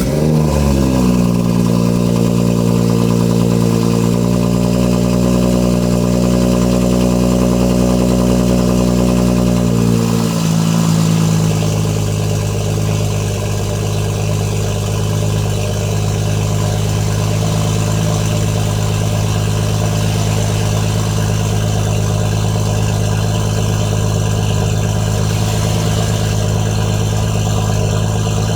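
BMW M140i's turbocharged 3.0-litre straight-six, decatted with a 4-inch decat pipe and stock rear box, idling just after start-up. The revs settle from the start-up flare and hold a fast idle, then drop to a lower steady idle about ten seconds in.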